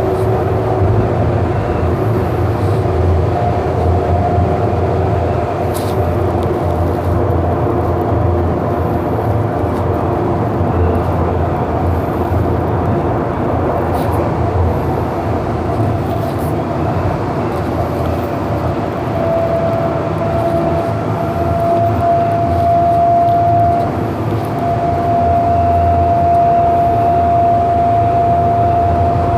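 Siemens S200 light rail vehicle heard from inside the car while running between stations: a steady low rumble of wheels on rail under an electric whine from the drive. Near the end the whine grows stronger and steadies at a slightly higher pitch.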